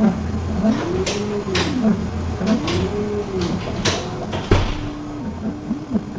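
The print-head drive motors of a uPrint fused-deposition 3D printer whine as the head moves back and forth. Each move makes a whine that rises in pitch and then falls, three times over, with sharp clicks in between. A heavy knock comes about four and a half seconds in, followed by shorter, flatter whines that stop and start.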